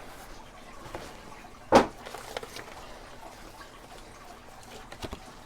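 A box being handled: one short thump about two seconds in, with a couple of faint clicks near the end.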